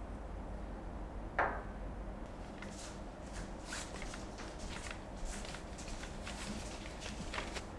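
A single knock about a second in, then soft rustling as a ribbon is untied and a cloth drawstring bag is pulled open.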